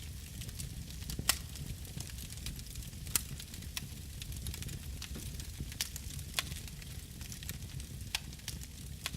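Wood campfire burning, crackling with irregular sharp pops over a low steady rumble; the loudest pops come about one and three seconds in.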